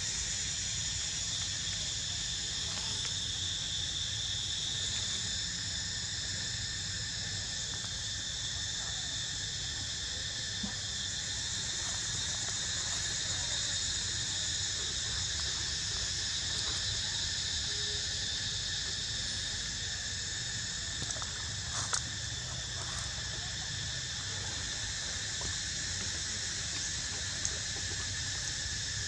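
A steady, high-pitched insect chorus that holds at one level without a break, over a low rumble, with a few faint clicks a little over two-thirds of the way through.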